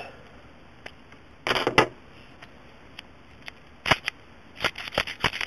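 Road Pro 70mm brass sliding-shackle padlock and its picking tools being handled just after the lock was raked open: scattered sharp metallic clicks and clacks, with a short rattle about one and a half seconds in and a quick run of clicks near the end.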